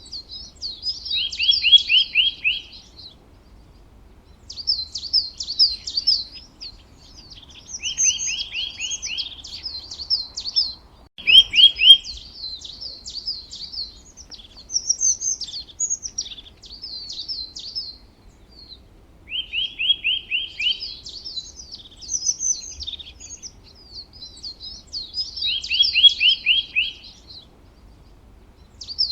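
A songbird singing, repeating phrases of quick high notes with short pauses between. Many phrases end in a fast, evenly spaced trill of slightly lower notes.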